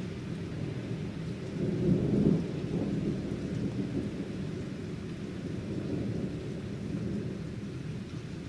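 Thunder rumbling, with a louder swell about two seconds in, over steady rain.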